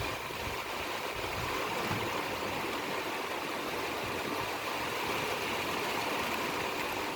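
Heavy downpour: dense rain falling in a steady hiss.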